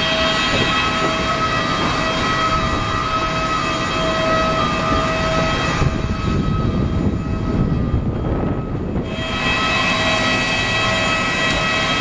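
Jet aircraft whine on the apron: a steady rush with several high steady tones. The upper part fades for a few seconds midway and then comes back.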